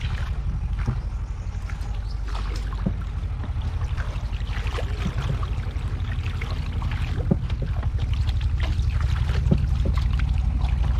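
A small boat under way: a steady low rhythmic throb, with brief splashes of water scattered through it.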